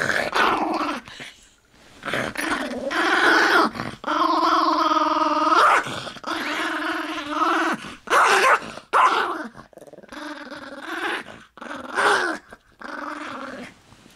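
Toy fox terrier growling over a bone it is guarding from its owner's hand: a string of long growls with short breaks, becoming shorter and weaker toward the end.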